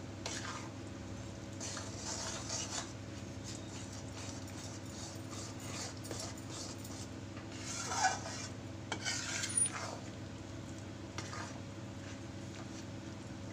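A spatula stirring and scraping wheat flour in hot ghee in a metal kadhai as the flour is roasted, with louder scrapes against the pan about two seconds in and again around eight to ten seconds, over a steady low hum.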